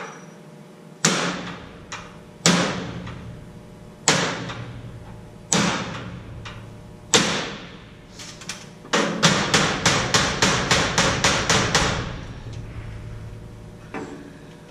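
Hammer blows at the steel-stud framing and drywall of a door opening. There are five single, ringing strikes about a second and a half apart, then a quick run of about fifteen rapid blows, and one lighter blow near the end.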